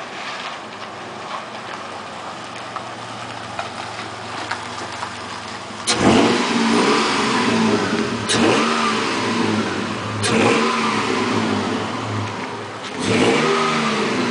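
1999 Toyota Tacoma engine idling steadily, then revved four times, each rev starting abruptly and its pitch rising and falling away. It is being run to listen for an engine knock after a Sea Foam treatment.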